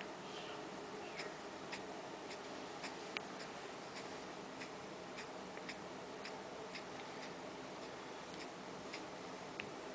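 Ceiling fan running: a low steady hum with faint clicks, about two a second.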